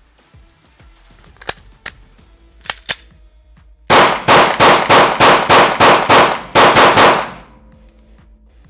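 Canik TP9 Elite Combat 9mm pistol fired in a rapid string of about a dozen shots, with a brief pause before the last few, echoing in an indoor range. Before that come a few light clicks of the pistol being handled and readied.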